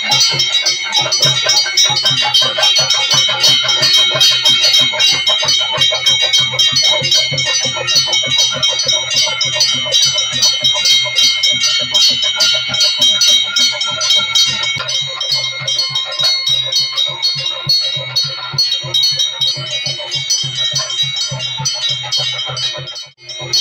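Chenda drums beaten in a fast, dense rhythm, with ilathalam cymbals ringing steadily over them: the percussion that accompanies a theyyam dance. It breaks off briefly near the end.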